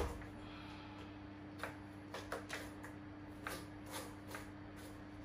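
Surf skateboard's CX4 spring truck and wheels giving light, scattered clicks and knocks on a tile floor as the rider rocks and shifts his weight on the deck, with one sharper knock at the start. A steady low hum sits underneath.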